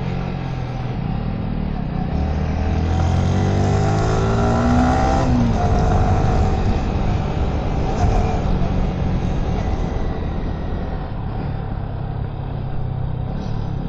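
Yamaha sport motorcycle engine on a race track, revving up with its pitch rising for about three seconds, then dropping sharply about five seconds in, and running on steadily after that.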